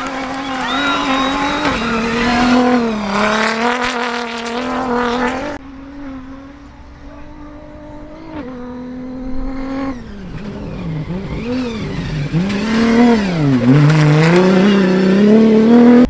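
Toyota Hilux rally-raid race truck engine revving hard close by as the truck slides across dirt. About five and a half seconds in it drops suddenly to a quieter, more distant engine. Later the revs fall and climb several times and grow louder toward the end as a truck comes closer.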